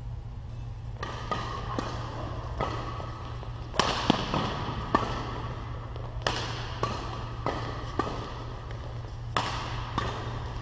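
Badminton rally: rackets striking a shuttlecock back and forth, starting with the serve about a second in, a sharp crack roughly every half second to a second, echoing in the hall over a steady low hum.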